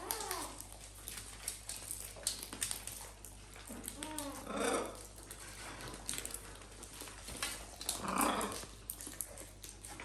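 Small poodle-type dog growling and whining three times: near the start, about four seconds in and about eight seconds in. Under it runs a steady patter of small clicks from macaws and a cockatoo cracking seed at a metal dish.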